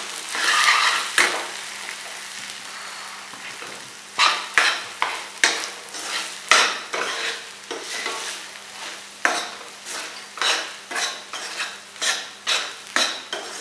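A metal spoon stirring and scraping sweet corn around a stainless steel pan, over the sizzle of the frying. After a quieter stretch of a few seconds, the scraping strokes come at an even pace from about four seconds in, a little more than one a second.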